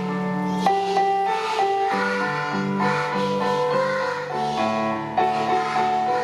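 Music: a song with keyboard accompaniment and children singing along.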